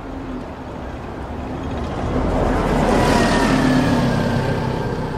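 A road vehicle passing close by: a rushing sound with a low engine hum that swells to its loudest about three seconds in, with a slight falling whine, then eases off.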